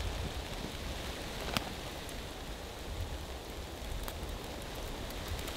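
Wood fire burning in a small metal camp stove: a steady crackling hiss with a few sharp pops, the clearest about a second and a half in, over a low rumble.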